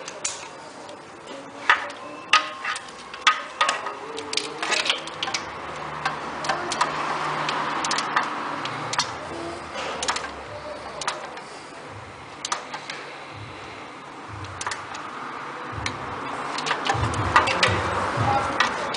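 Torque wrench ratcheting and clicking in irregular runs while the exhaust manifold nuts are tightened to 44 N·m.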